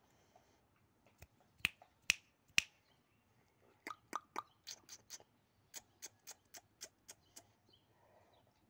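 A series of sharp clicks: three loud ones about half a second apart, then a quicker run of about a dozen softer ones.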